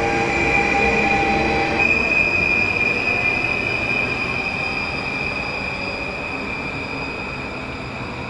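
Electric multiple-unit passenger train running on curved track, its wheels giving a steady high-pitched squeal over the rumble of the wheels. The squeal steps slightly higher about two seconds in, and the sound slowly fades as the train moves away.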